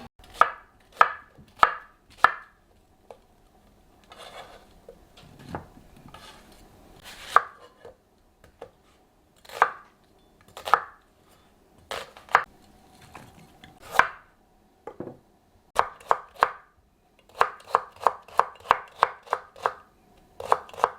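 Kitchen knife chopping vegetables on a cutting board: single strokes in small groups with pauses, then a quick run of about ten strokes near the end.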